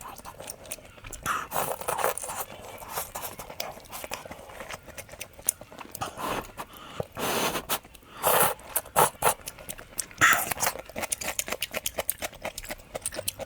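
Close-miked eating of pickled radish and instant noodles: crisp crunching and chewing with many small clicks and mouth smacks, and a longer slurp about seven seconds in.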